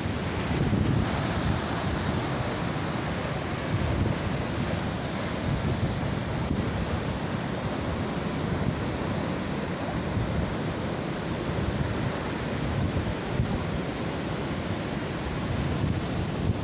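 Rough sea surf breaking and washing up the beach without let-up, with wind buffeting the microphone.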